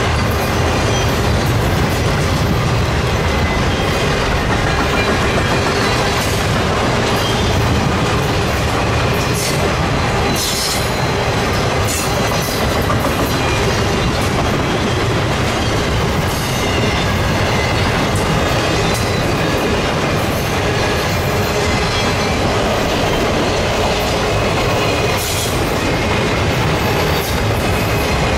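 Intermodal freight cars loaded with trailers and double-stacked containers rolling past close by: a steady loud rumble and clatter of steel wheels on the rails, with a few brief sharp metallic sounds about a third of the way in and again near the end.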